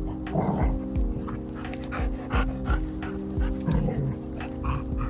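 A large white dog panting and making excited noises in short bursts while mouthing its leash, over light background music.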